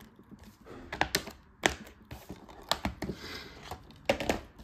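Clear plastic Blu-ray cases being handled: a string of sharp, irregular plastic clicks and clacks, with a brief rustle about three seconds in.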